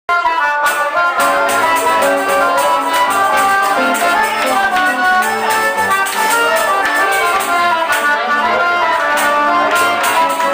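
Live forró band playing: accordion melody over guitar, a zabumba drum and hand percussion keeping a steady, quick beat. The music cuts in abruptly at the start.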